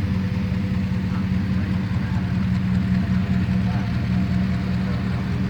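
A vehicle engine idling steadily, a low even drone with no revving.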